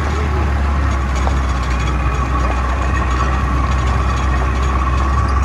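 Jeep engine running steadily with a strong low drone and a thin steady whine above it, heard from inside the open-sided jeep as it drives over a rough stony mountain track.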